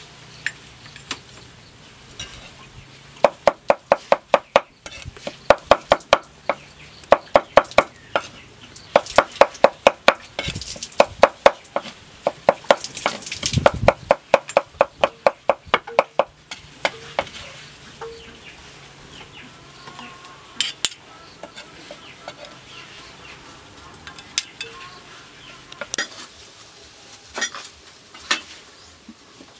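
Cleaver mincing a meat mixture on a thick wooden chopping block: bursts of rapid strikes, about five a second, with short pauses between them. A little past the halfway point the chopping stops, and only occasional knocks on the board follow.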